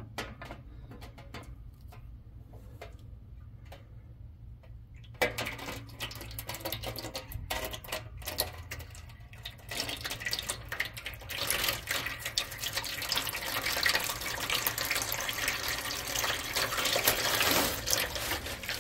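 Used engine oil from a Cat C12 diesel's oil pan pouring in streams into a metal drain pan, the flow throttled by a drain plug held partly out. The pouring starts suddenly about five seconds in and grows heavier and louder towards the end.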